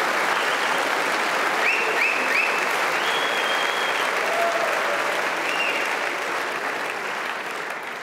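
Audience applauding, a steady clatter of many hands clapping that dies down near the end.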